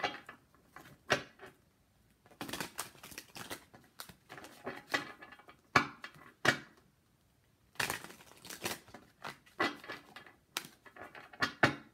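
A deck of tarot cards being shuffled by hand: bursts of quick flicking and slapping of cards against each other, with a few sharper snaps. Short pauses come about two seconds in and again about seven seconds in.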